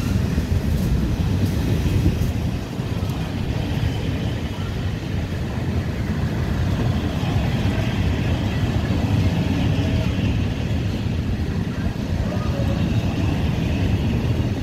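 Passenger coaches of a train rolling past along the platform: a steady rumble of steel wheels on the rails.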